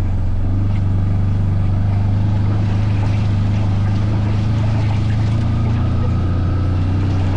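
A ridden vehicle's engine running at a steady speed, with a low, even drone.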